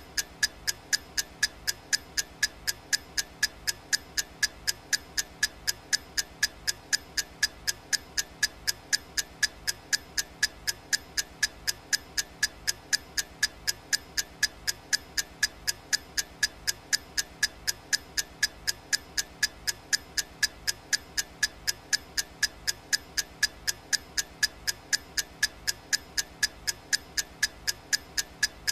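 Clock ticking sound effect: sharp, evenly spaced ticks, about two a second, keeping steady time.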